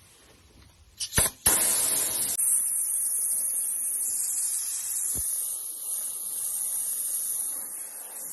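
Sprayer hissing: two short bursts about a second in, then a steady spray held for about seven seconds.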